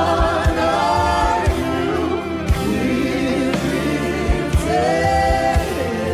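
Live gospel worship music: a lead singer with a choir of voices sustaining the melody over a band, with low drum thumps scattered through.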